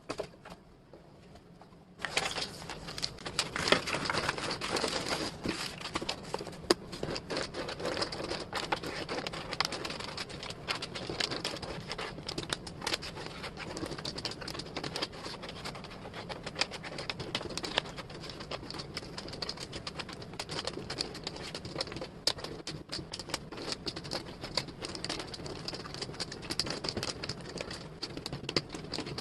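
Wooden jigsaw puzzle pieces clicking and rattling as they are handled and fitted, a dense run of small taps that starts about two seconds in.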